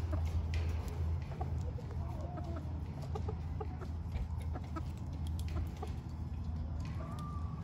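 Gamefowl chickens clucking in short, scattered calls, with one longer drawn-out call near the end, over a steady low hum.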